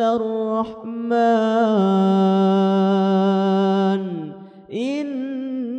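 A man's solo voice reciting the Quran in melodic tartil style, stepping down into one long steady held note of about two seconds, then after a brief breath starting the next phrase.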